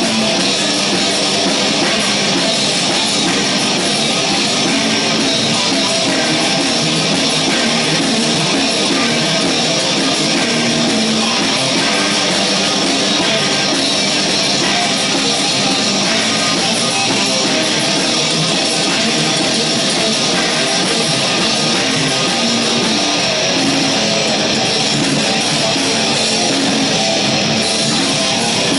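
Live heavy metal band playing: distorted electric guitars over drums, loud and dense without a break.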